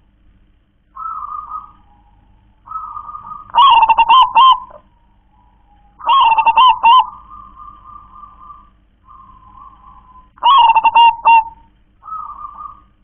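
Zebra dove (perkutut) singing: three loud phrases of rapid, rolling coos, about 3.5, 6 and 10.5 seconds in, with quieter single coos between them.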